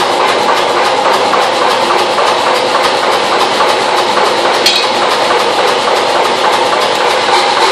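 Power hammer running idle between blows, a steady mechanical drone with a fine rattle, and a single light metal clink about halfway through.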